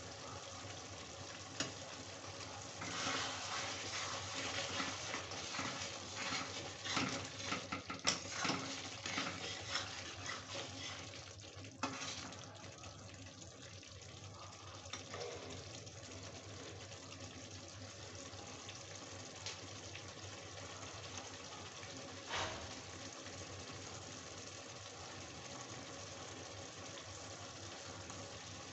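Chicken curry bubbling and sizzling in a steel kadhai, a steady hiss. A steel spatula stirs and scrapes against the pan with clinks and knocks, busiest in the first half, with one more knock later on.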